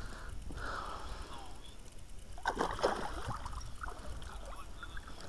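Water splashing and dripping as a small landing net is worked through the water beside an inflatable boat, with a louder splash about two and a half seconds in.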